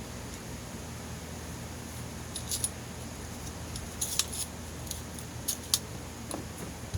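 Scattered small sharp clicks and taps from handling a Vevor 20V cordless brad nailer, with a quick cluster about four seconds in, over a low steady hum. There is no firing report: the nailer is not shooting.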